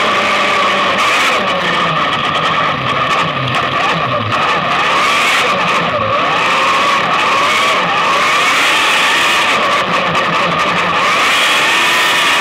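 Onboard sound of a Class 8 autograss racing car's engine running hard at high revs. Its pitch rises and falls over and over as the car is driven around the dirt track.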